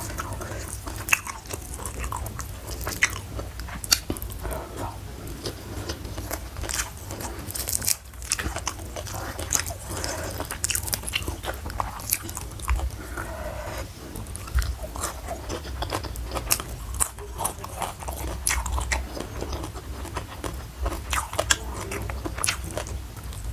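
Close-miked mouth sounds of someone eating crunchy food: steady chewing with many sharp, crisp crunches throughout.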